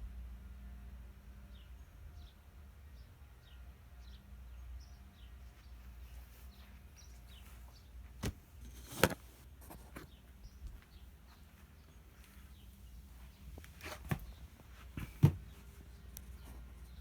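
Antique Diehl ceiling fan coasting down after being switched off: a low steady whir. Sharp knocks stand out twice near the middle and twice near the end, and faint short high chirps repeat throughout.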